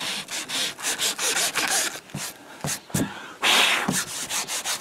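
180-grit sandpaper rubbed by hand over an inflatable boat's fabric tube, scuffing the surface so the glue will bond: quick scratchy back-and-forth strokes, a short lull about two seconds in, then a longer rub and more strokes.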